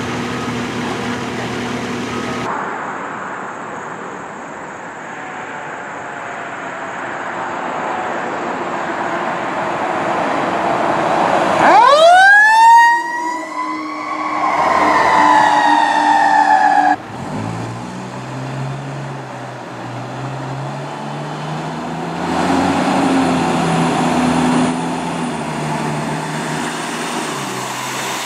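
Emergency vehicle siren winding up sharply, then gliding slowly down in pitch for a few seconds before stopping abruptly, over engine and traffic noise. Afterwards a heavy truck's engine runs low and steady.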